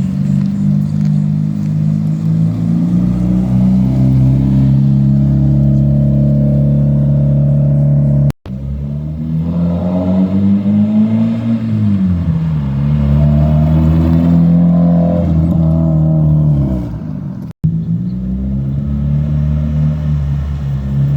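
Mazda Miata's freshly rebuilt inline-four engine running on the move, its pitch holding steady, then rising and falling with the revs. The sound cuts off abruptly twice, about eight and seventeen seconds in, between clips.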